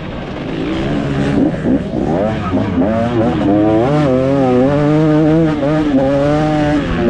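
2024 KTM 250 SX single-cylinder two-stroke motocross engine under hard riding: quieter off the throttle at first, then revving up sharply about a second in and held at high revs, its pitch wavering as the throttle is worked over the rough ground.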